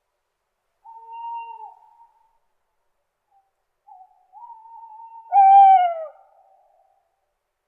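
Owl hooting: a steady hoot about a second in, then after a pause a longer hoot that ends in a louder, falling note.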